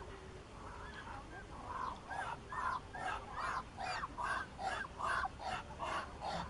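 Muscovy duck calling: a rapid run of short, repeated calls, about two or three a second, fading in about a second and a half in and growing louder.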